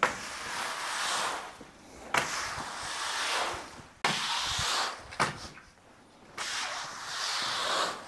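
Push broom sweeping wet leaves and debris across a concrete floor: a run of scraping, swishing strokes about every second or two, several beginning with a sharp knock of the broom on the concrete.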